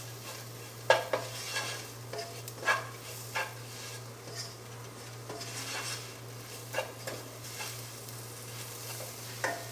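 Spoon scraping and knocking against a pan, a dozen or so irregular strokes, while onion-tomato masala with freshly added spice powders is stirred and roasted, with a faint sizzle and a steady low hum underneath.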